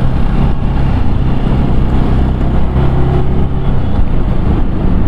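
Bajaj Pulsar NS200 engine running steadily while riding, over a constant rush of road and wind noise. The left-side tak-tak knock is not heard; the failed one-way starter clutch behind the left cover has been replaced.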